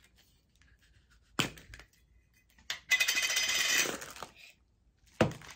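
A Funko Pop Soda can being opened and its wrapped figure taken out: a few sharp clicks from the can, with about a second of crinkling plastic wrapping near the middle.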